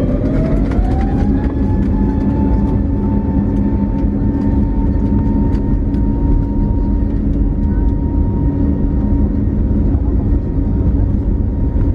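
Airbus A320neo jet engines heard from inside the cabin, spooling up: a whine rises in pitch over the first second or so, then holds steady over a loud, even rumble, typical of the engines reaching takeoff thrust.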